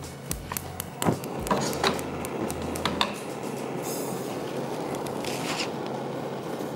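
Cookware and utensils clink and knock against a wok and frying pan a few times. A steady hiss follows from about three seconds in, typical of marinated chicken starting to cook in a dry hot pan.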